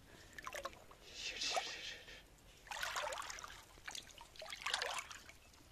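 Water splashing and trickling in a shallow rock pool as live fish move and thrash in it, in about four short bursts spread over a few seconds.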